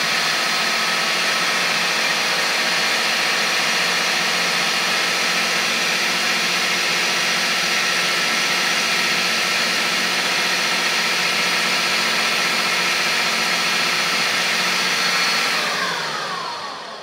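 Electric food processor running steadily on its dough setting, its blade churning flour and eggs for pasta dough. Near the end the motor shuts off and its whine falls in pitch as the blade spins down.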